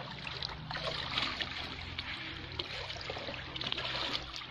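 Shallow water trickling and lapping, stirred by something moving in it, with small splashes and clicks throughout over a faint low hum.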